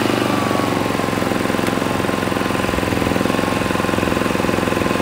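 Westinghouse iGen4200 inverter generator's single-cylinder engine running steadily just after being started, settled into its low eco-mode speed with no load on it.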